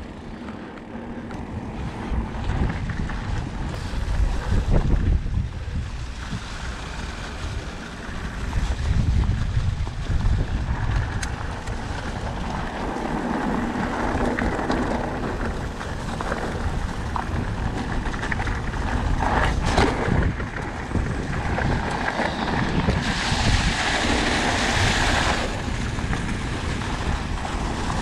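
Wind buffeting the microphone of a camera on an e-mountain bike in motion: a continuous rumble that swells and falls. A brighter hiss rises for a couple of seconds about three-quarters of the way through.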